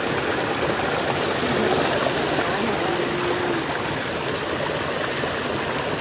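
Shallow stream rushing and splashing over rocks at a small waterfall, a steady, even rush of water.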